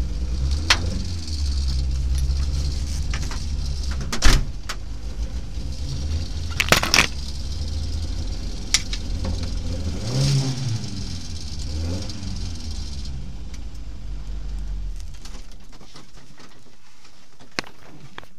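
Rally car engine idling, heard from inside the cabin, with two short blips of revs about ten and twelve seconds in. Sharp knocks and rattles sound in the cabin. The engine sound dies away about fifteen seconds in.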